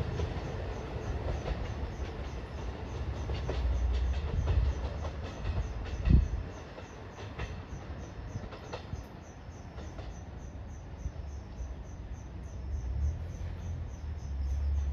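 E233 series 3000 electric train pulling away, its wheels clacking over the rail joints as it recedes, with one loud thump about six seconds in. The clatter thins out after that into a faint low rumble that swells again near the end.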